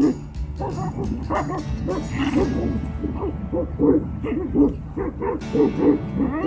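Barking and yelping in quick, irregular succession, as in a canine scuffle, over background music.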